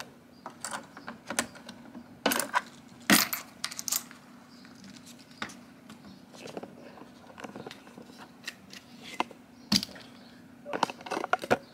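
Coins clinking in paper coin wrappers as filled tubes are lifted out of an automatic coin sorter and the wrappers are pulled from the clear plastic tubes: scattered sharp clinks and taps, a few louder ones a couple of seconds in and again near the end.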